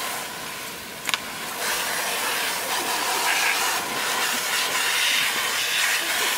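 A water jet from a spray wand hissing steadily as it rinses dried-in dirt out of a fabric dog bandana on a wooden bench, while a hand rubs the cloth. There is a brief click about a second in.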